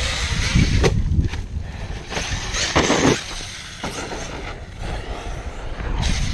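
ARRMA Kraton 1/8-scale brushless RC monster truck bashing over dirt jumps: motor and tyre noise on dirt, with a couple of thuds about a second in and a loud rough burst near three seconds as it comes down. Heavy wind buffeting on the microphone runs underneath.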